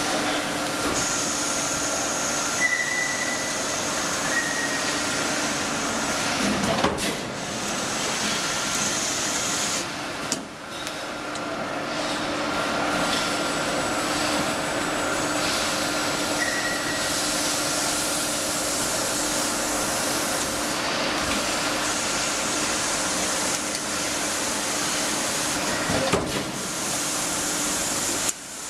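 Mechanical CNC turret punch press running on thin stainless steel sheet: a steady, dense mechanical noise with a steady hum through it. A louder knock comes about a quarter of the way in and another near the end.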